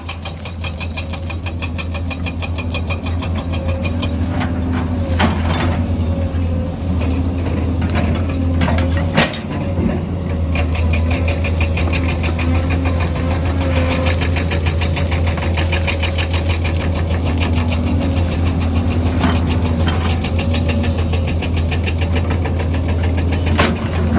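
Excavator's diesel engine running steadily with a rapid, even ticking, broken by a few sharp knocks.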